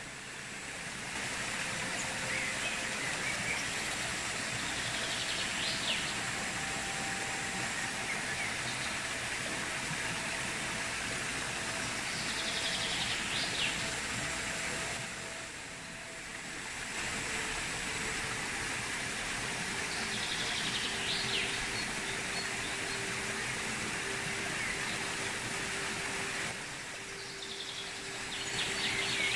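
Creek water rushing steadily over rocks, with a bird calling in short chirps every several seconds. The water sound dips briefly twice.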